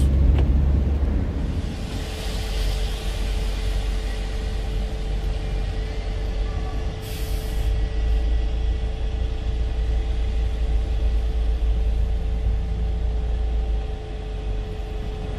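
Driving noise inside a van's cab on a wet road: a steady low engine and road rumble with a faint steady hum. A hiss rises about two seconds in, and a short sharp hiss comes about seven seconds in.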